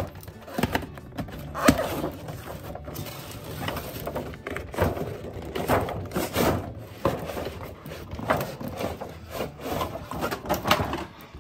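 Cardboard toy box being opened by hand: irregular rustling, scraping and knocking of cardboard and plastic packaging.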